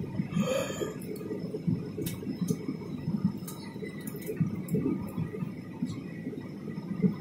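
Jet airliner cabin noise during the descent: a low, uneven rumble of engines and airflow, with a few light clicks.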